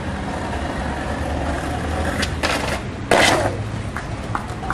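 Skateboard wheels rolling on concrete with a steady rumble, then a loud scraping crash about three seconds in as the skater falls, followed by a few light clicks.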